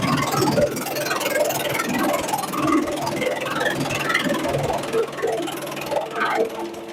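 Bamboo shredder machine running: a low steady hum under dense, irregular crackling and clattering, which falls quieter near the end.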